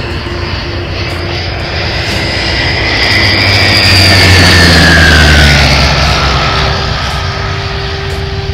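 Pulsar experimental light aircraft making a low pass. Its engine and propeller note swells to a peak about four to five seconds in, then drops in pitch and fades as it goes by.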